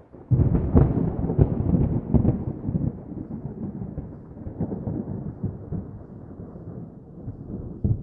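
A loud crackling rumble starts suddenly just after the start and slowly fades away, with another sharp crack near the end.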